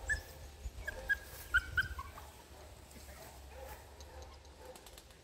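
Puppy whining in short, high-pitched whimpers, about six in quick succession in the first two seconds, then stopping.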